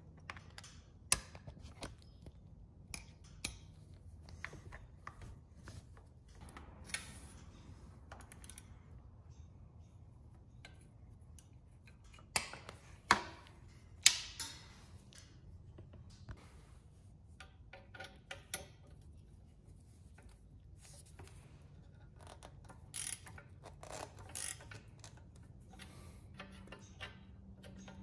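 Scattered clicks and metallic clinks of a socket wrench with a 12mm socket tightening engine guard bolts on a motorcycle, with a few sharper knocks about halfway through.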